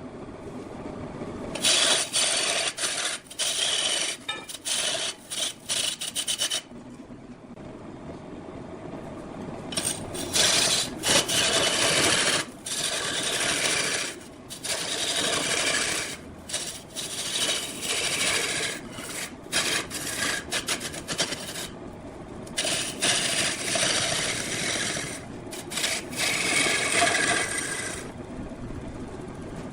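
A hand tool cutting wood spinning on a large wood lathe, in three long passes with short pauses between them, making a loud hissing scrape.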